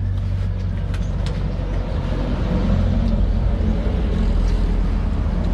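Steady low hum of an idling motor-vehicle engine, growing a little louder about two seconds in, with a few faint clicks over it.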